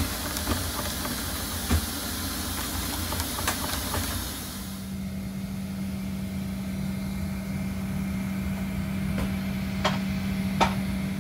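Steady airport machinery noise: a hiss over a low engine-like rumble, with a few light clicks. About five seconds in it changes to a quieter steady low hum, and two sharp clicks sound near the end.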